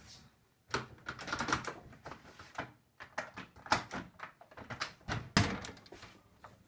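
A door handle and lock being worked: a run of rattling clicks and knocks, with a couple of louder knocks, as the door is unlatched and pulled open.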